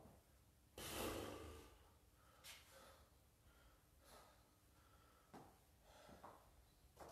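Faint, hard breathing of a person exercising: a series of short, sharp exhales and sniffs, spaced a second or two apart, with the strongest, longest exhale about a second in.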